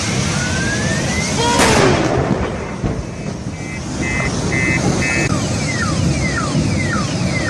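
A rising whine ends in a sharp crash about a second and a half in, with a falling tone after the impact. A car alarm then goes off, first as a run of short beeps and then as a siren sweeping down in pitch about twice a second, over steady road noise.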